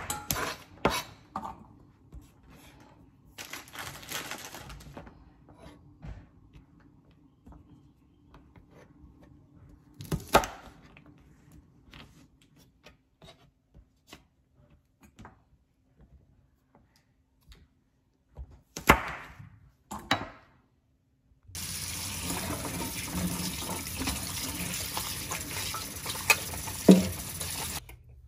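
Chef's knife cutting string beans on a plastic cutting board: a few separate cuts knocking on the board, a second apart early on and then scattered. Near the end comes about six seconds of steady rushing noise that stops suddenly.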